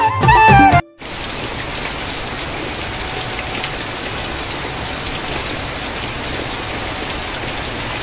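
Steady monsoon rain falling, an even hiss that sets in after the tail of an intro music jingle cuts off abruptly under a second in.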